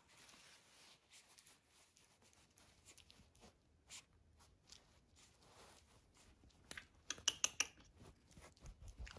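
Paper towels rustling and crinkling as a Shih Tzu puppy chews and paws at them. The sound is soft, scattered crackling, with a quick run of sharper crackles about seven seconds in.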